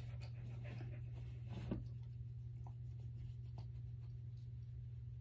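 Husky puppy panting and shifting about on bedding, with soft rustling and one light bump a little under two seconds in, over a steady low hum. The panting fades out after about two seconds.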